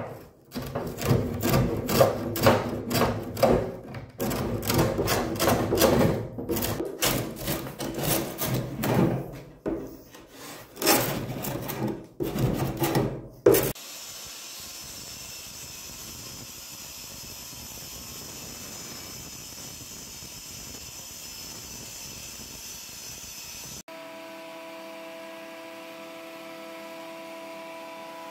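Drawknife scraping and shaving bark off the live edge of a wooden board in quick, uneven strokes with short pauses. About fourteen seconds in this gives way to a steady, quieter hum.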